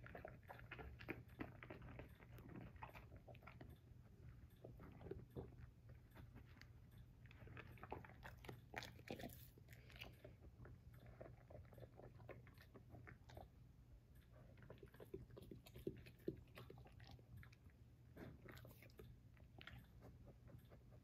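Basset hound chewing romaine lettuce: faint, irregular crisp crunching bites with wet mouth sounds.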